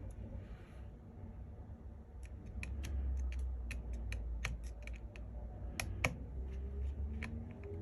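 Small repair tools clicking and tapping on the internal parts of an iPhone 12 Pro Max as the rear camera is being freed. The sharp clicks come in quick, irregular succession from about two seconds in, with the loudest near the end, over a steady low hum.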